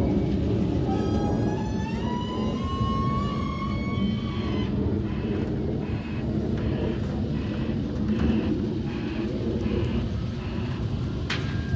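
Dennis Eagle Elite 2 refuse truck with an Olympus body, its diesel engine rumbling steadily while the hydraulics whine, rising in pitch over a few seconds, as the bin lift works. A pulsing sound then repeats about one and a half times a second for several seconds.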